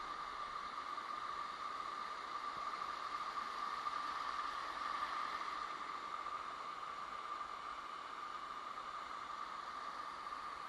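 Steady rush of running water, like a waterfall, an even hiss with a slight constant tone in it.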